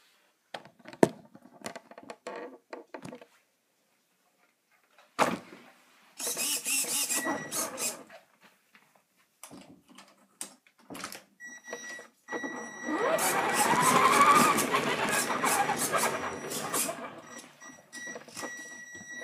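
Electric motor of a Traxxas radio-controlled model running in bursts and revving up, with a steady high whine from a little after halfway, among clicks and a sharp knock as the model is handled on a hard floor.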